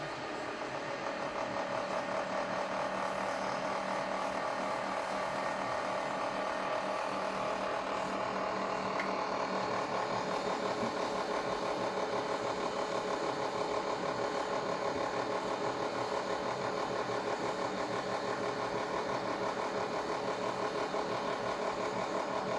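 Toshiba steam oven making an abnormal mechanical noise: a steady motor hum with a fast, regular pulsing vibration that builds over the first couple of seconds and then holds.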